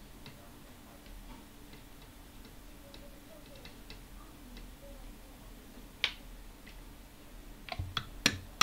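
Faint room hum with scattered small ticks, a single sharp click about six seconds in, then a quick run of louder clicks and taps near the end: small tools and the circuit board being handled on an electronics workbench.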